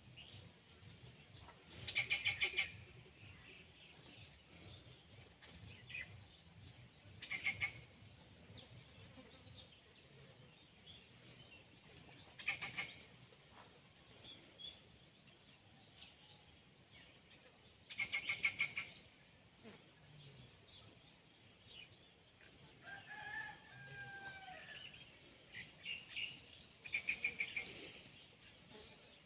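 Faint outdoor ambience with a bird repeating a short, rapid trill about every five seconds, and a rooster crowing once late on.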